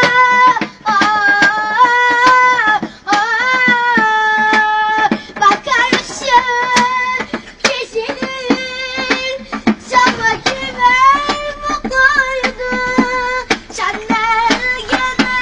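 A boy singing a slow Turkish song unaccompanied in a high child's voice, holding long, wavering notes, over a tapped beat of sharp clicks.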